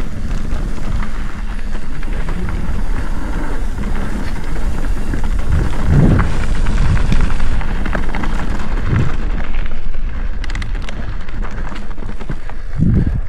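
Mountain bike riding fast down a dirt singletrack: wind rumble over the camera microphone, with tyre and trail noise and the bike rattling over bumps. The noise eases a little near the end, with a run of sharp clicks.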